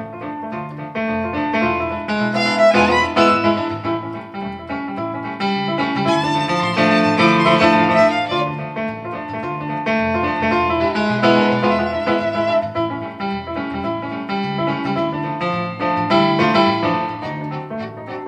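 A violin and a Roland digital piano accordion playing a piece together, the violin bowing the melody over regularly changing accordion bass notes.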